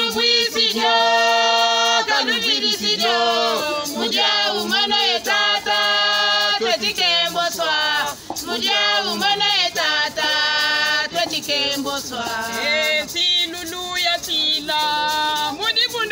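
A small group of women and a man singing a song in Kikongo together without instruments, with long held notes.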